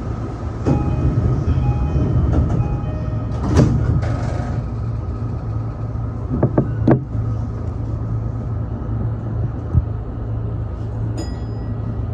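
E233 series electric commuter train running at speed, heard from the driver's cab: a steady rumble and hum. Sharp knocks from the wheels over the track come about three and a half seconds in, a pair around seven seconds, and a lighter one near ten seconds.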